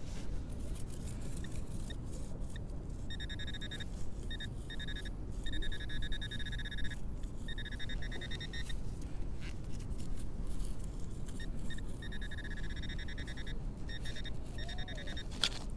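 Handheld metal-detecting pinpointer sounding a rapid pulsed beep in a string of bursts, from about three seconds in, as it is swept over a buried target: its alert for metal close to the tip. Under it is a low rustle of handling and digging in grass and soil, and a sharp click comes near the end.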